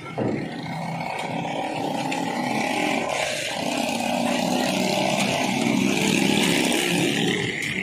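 A motor vehicle's engine running close by, growing gradually louder as it approaches.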